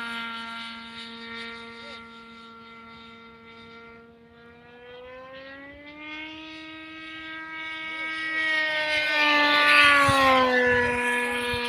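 Engine of a wooden F3R pylon-racing radio-controlled model airplane in flight, a steady high-pitched buzz. It fades as the plane flies away, then grows louder and rises in pitch as it comes back, and drops in pitch as it passes close near the end.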